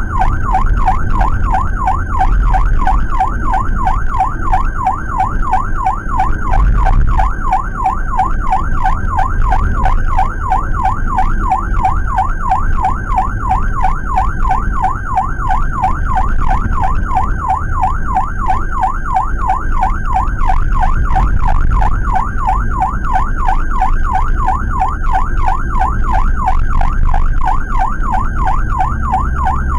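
Ambulance electronic siren sounding a fast, continuous warble, heard from inside a Suzuki APV ambulance's cabin over the van's low engine and road rumble.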